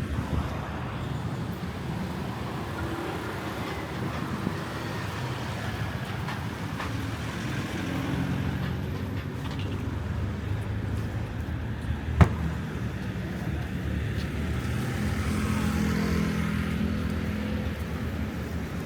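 Street traffic: vehicle engines running and passing by, swelling and fading, with one sharp click about twelve seconds in.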